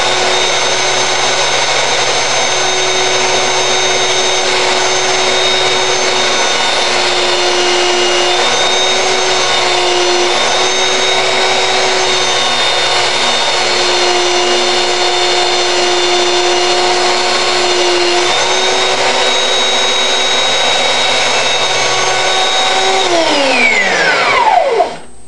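Craftsman 3x21-inch variable-speed belt sander running steadily, its motor whine and belt noise holding with a few slight dips in pitch. It is switched off near the end and winds down to a stop.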